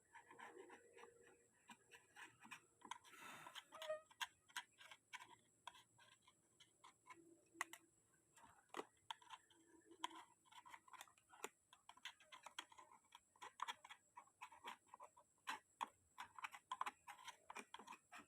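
Faint, irregular clicks and light taps of hand tools and small engine parts being handled. They come more often in the second half, and there is a brief hiss about three seconds in.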